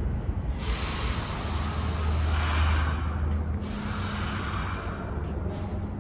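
New York City subway train's air brakes venting in two long hisses over a steady low rumble from the train, with shorter hisses near the end.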